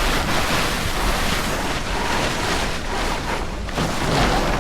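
Wind buffeting the microphone over the steady wash of water along a small sailboat's hull while under sail.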